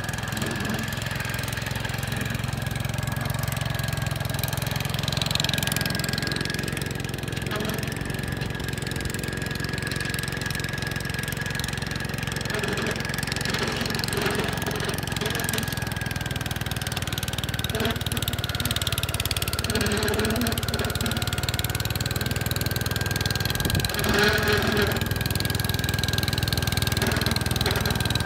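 Gravely 5665 tractor engine running steadily while driving a snow cannon snowblower attachment, with a steady high whine over the engine's drone.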